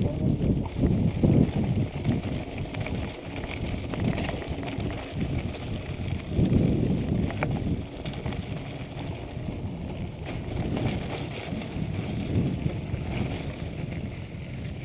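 Wind rushing over the microphone of a handlebar-mounted camera on a moving mountain bike, mixed with the low rumble of the tyres rolling over a dirt trail. An occasional sharp click or knock from the bike sounds over the bumps.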